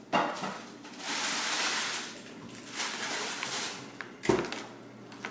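Soft rustling of a plush teddy bear and fleece blanket being handled, in a few stretches, with a soft bump about four seconds in.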